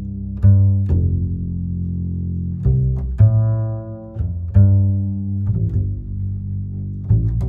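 Background music: a slow line of low, held notes, a new note starting every second or so.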